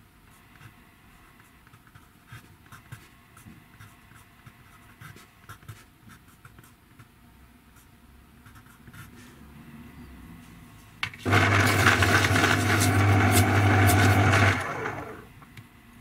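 Faint scratching of a pencil writing on paper, then about eleven seconds in a small electric motor starts abruptly and runs loudly with a grinding noise and a steady hum for about three and a half seconds before winding down.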